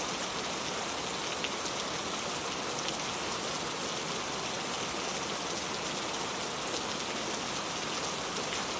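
Gentle steady rain, an even patter of drops with the occasional faint louder drop.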